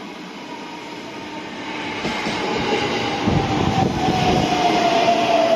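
JR East E129 series electric multiple unit pulling into the platform, growing louder as it comes alongside. Its traction motors give a whine that falls slowly in pitch as the train slows, over the rumble of wheels on the rails with a few heavy low thuds.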